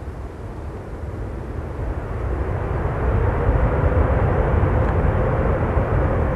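Boeing 787 Dreamliner's jet engines rumbling as the airliner flies past, growing louder over the first few seconds, with a steady whine coming in about halfway through.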